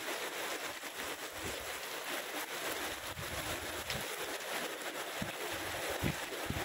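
Heavy rain falling steadily on water, grass and leaves, a constant hiss, with a few short low rumbles of wind on the microphone.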